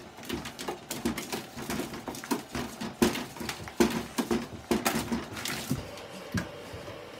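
A puppy's claws scrabbling on the rim of a bathtub as it clambers up and over: quick, irregular scratching and tapping.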